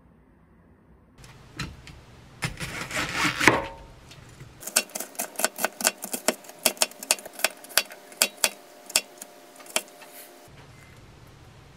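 Kitchen knife mincing onion on a plastic cutting board: a quick run of sharp knocks, about four a second, lasting several seconds. Before it come a few scattered knocks and a short burst of noise.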